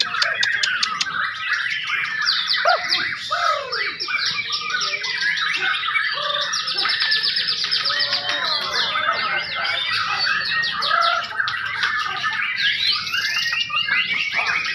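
White-rumped shama (murai batu) singing: a dense, unbroken stream of varied phrases, with rapid trills and gliding whistles.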